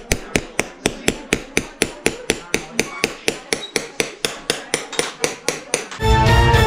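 Small hand hammer tapping a steel chasing punch into a metal plate in qalamzani hand engraving: quick, even metallic taps, about four to five a second. Music cuts in near the end.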